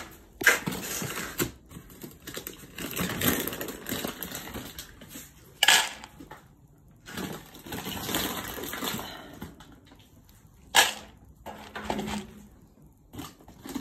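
Rustling and crunching handling noise as a plastic bag and a food tray are carried and handled, with three sharp knocks spread through it.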